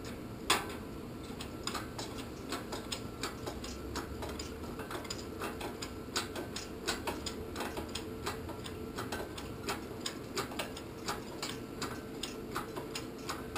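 Engine hoist being worked to raise a boat engine on its chain: a string of irregular clicks and ticks, several a second, with one sharp knock about half a second in, over a low steady hum.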